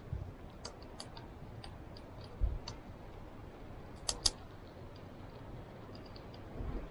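Small flame crackling as a piece of plexiglass is being lit with matches: scattered faint crackles and ticks, with two sharper cracks about four seconds in and a dull thump a little earlier.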